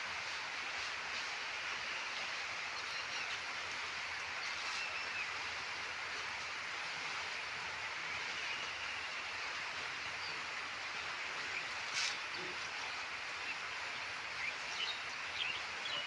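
Steady outdoor background hiss with a few faint chirps and one sharp click about twelve seconds in.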